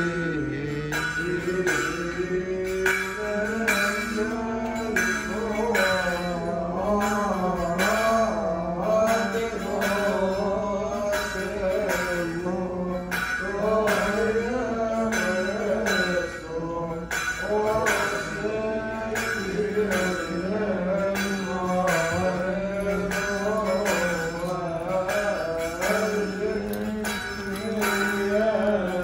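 Male voices chanting a Coptic church hymn together in one sustained, wavering melodic line, with a regular struck percussion beat keeping time.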